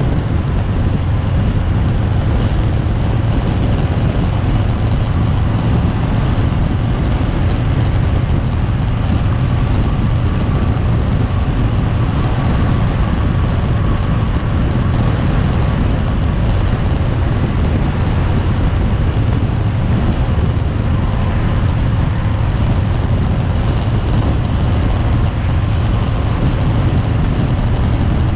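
Harley-Davidson Fat Bob's V-twin engine running steadily while riding, with wind rushing over the handlebar-mounted GoPro's microphone.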